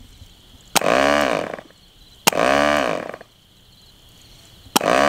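Cox Conquest .15 glow engine being flipped to start: three times a sharp snap is followed by under a second of running that rises and falls in pitch, the engine catching briefly each time and dying.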